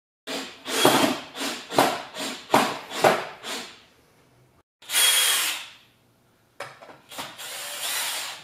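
Cordless drill/driver running in a quick series of short bursts, then a longer run about five seconds in and another near the end as it drives a screw into wood.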